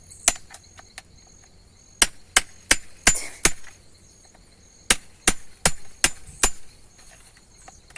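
Hammer blows on wood and metal, prising out nails and fence-wire staples from old posts: a few light taps at the start, then two runs of five sharp strikes at about three a second.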